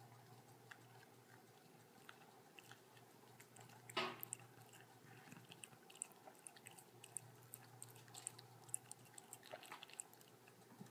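Cat licking ice cream off a spoon: faint, quick, wet tongue clicks, many in a row, with one louder brief noise about four seconds in.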